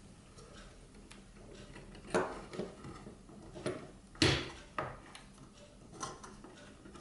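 Plastic parts of a Rollei P355 slide projector's drive mechanism clicking and knocking as they are handled and pushed into place: a handful of short, separate clicks, the loudest about four seconds in.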